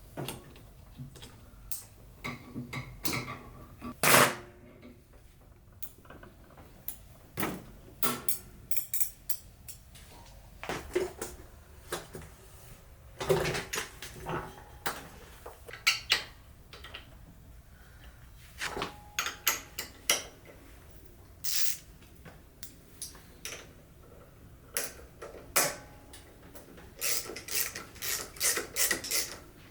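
Irregular clicks, knocks and clatter of hand tools working on metal parts of a riding mower, with short gaps between strikes.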